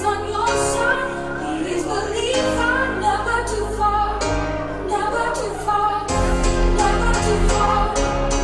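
Music with singing: a song with sustained bass notes that change every couple of seconds and a steady beat, growing fuller about six seconds in.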